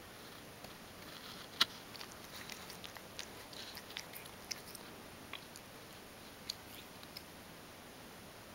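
Ragdoll cat grooming itself, licking its paw and fur close to the microphone: a run of soft, irregular tongue clicks, with one louder click about one and a half seconds in, stopping about seven seconds in as it lifts its head.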